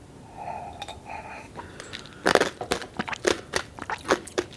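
Close-miked crunching bites and chewing of crisp food, a quick irregular run of sharp crunches starting about two seconds in.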